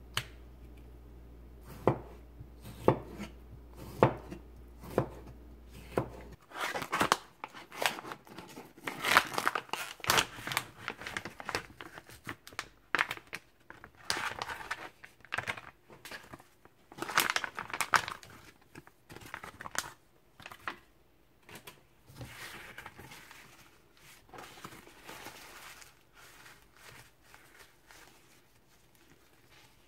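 A kitchen knife cuts tomato in a ceramic bowl, with about six sharp clicks roughly a second apart. After that, the plastic packaging of a smoked chicken breast is crinkled and torn open at length. Near the end the meat is rustled in a paper towel.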